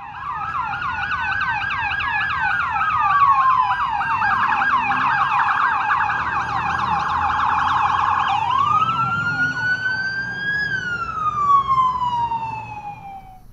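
Police sirens. A slow wail rising and falling is overlaid by a fast repeating yelp for the first two-thirds; then a single wail rises again and falls away until it stops near the end, with a low rumble underneath.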